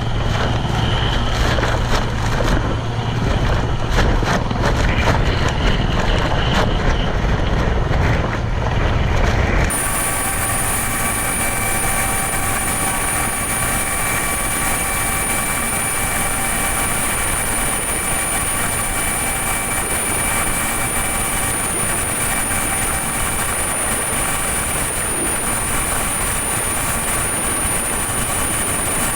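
Loud steady engine noise. About ten seconds in it changes abruptly to an even machine whine with several steady high tones.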